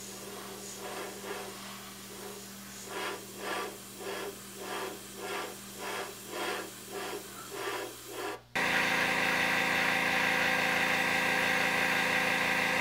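Airbrush spraying semi-gloss clear coat in short pulses, about two a second, over the steady hum of an air compressor. About two-thirds of the way in, it changes abruptly to a louder, continuous hiss of spraying air with the compressor hum underneath.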